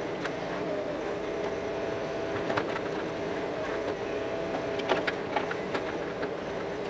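Bobcat mini excavator's diesel engine running steadily under hydraulic load while the bucket grades soil, with scattered knocks and rattles from the digging and the machine.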